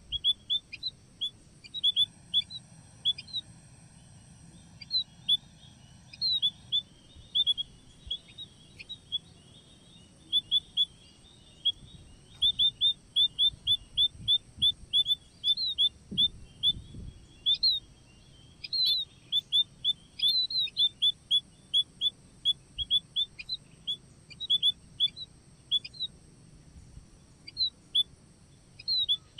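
Munias (emprit) calling in a rapid series of short, high chirps, several a second, with a faint steady high hiss behind them.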